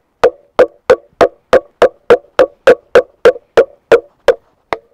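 Batoning: a wooden stick strikes the spine of a Huusk stainless-steel full-tang knife again and again, driving the blade down through a small log on a wooden cutting board. The knocks are sharp and evenly spaced, about three a second, each with a short ringing tone, and come a little slower near the end.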